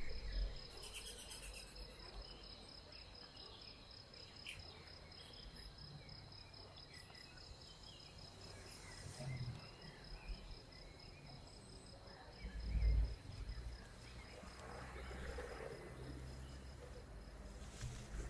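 An insect trilling steadily in a faint, high, evenly pulsed tone that stops near the end, with a couple of dull low thumps partway through.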